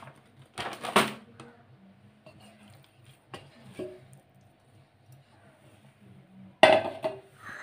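Kitchen handling sounds: a plastic flour packet rustling as maida flour is shaken out onto a stone counter, a couple of light knocks as the dough ball is handled and set down, and a loud short rustle or knock near the end, over a faint low hum.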